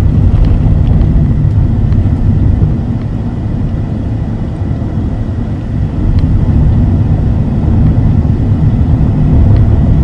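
Steady low road and engine rumble inside the cab of a vehicle driving at highway speed, easing slightly in the middle and building again toward the end.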